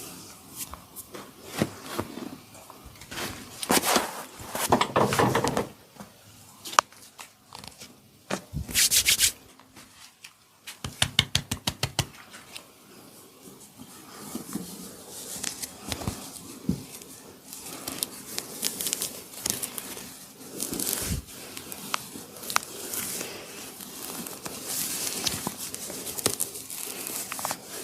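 Hands rubbing and scrubbing over hair and skin during a head massage, with scattered sharp clicks and a quick run of about ten taps near the middle.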